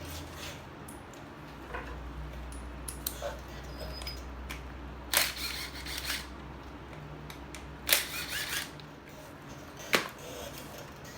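Metal clicks and clinks of a hand tool working the air cleaner bolts out on a Harley-Davidson Sportster. A few light ticks are followed by three sharp clinks, the loudest about eight seconds in, over a low steady hum.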